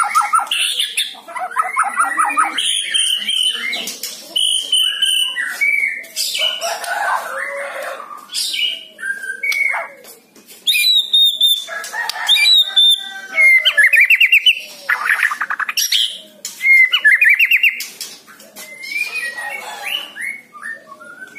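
White-rumped shama (murai batu) singing in full, varied song: clear whistled phrases, rapid rattling trills and high twittering notes in quick succession, with a brief lull about ten seconds in.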